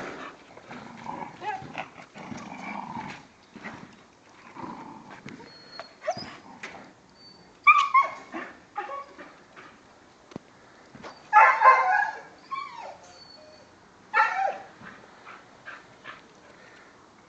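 A dog barking and yelping in short bursts, with three louder ones in the second half.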